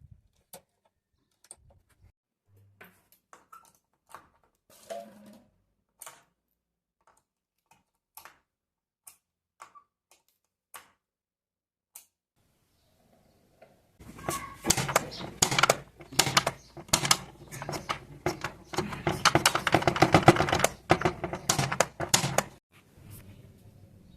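Scattered single clicks and taps, then, about halfway through, some eight seconds of loud, rapid clicking and rattling that stops suddenly.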